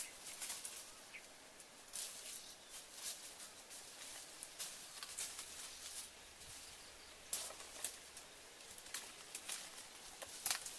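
Dry leaf litter and twigs crunching and rustling as a person steps and moves through them, in irregular short crackles.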